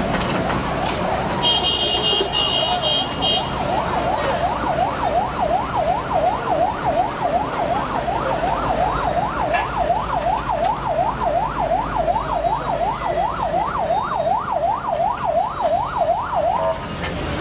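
A siren yelping in a fast up-and-down wail, about two to three sweeps a second, starting about four seconds in and cutting off just before the end, over a steady low rumble of machinery and street noise.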